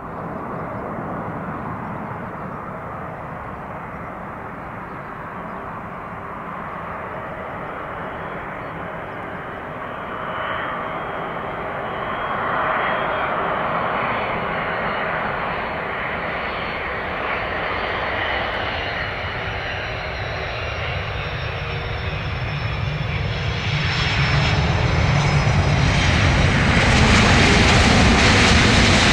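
Jet airliner engines running: a broad rumble with a thin high whine, growing louder about three-quarters of the way through.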